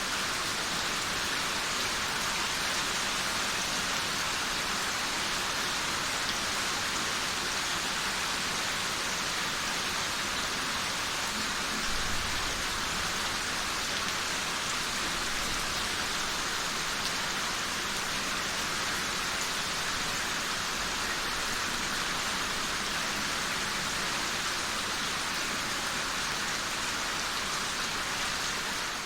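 Heavy rain falling steadily on a street and trees, an even hiss.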